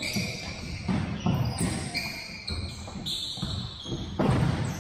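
Futsal ball being kicked and bouncing on a hardwood gym floor, with sneakers squeaking as players run, echoing in a large gym. A loud sharp impact comes about four seconds in.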